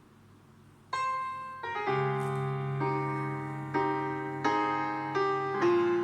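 Music played through a JBL Flip 3 Stealth Bluetooth speaker: after about a second of quiet between tracks, a piano intro begins with a single note, then steady chords over a bass line.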